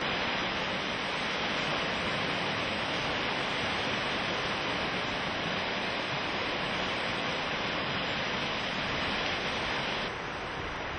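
River in flood rushing through its channel: a steady, loud rush of water that eases slightly near the end.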